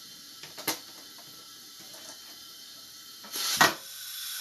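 Workshop handling sounds against a faint steady hiss: a light click about a second in, then near the end a short rush of noise with a sharp knock, followed by a rising hiss that ends in a click.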